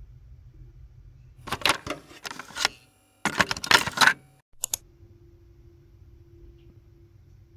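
Fast typing on a mechanical keyboard, keys clacking in two bursts of about a second each, followed by two quick clicks.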